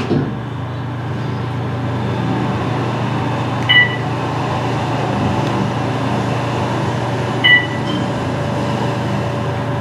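Otis Gen2 machine-room-less elevator car travelling, a steady hum and rumble inside the cab. A short electronic chime sounds twice, about four seconds in and again near seven and a half seconds.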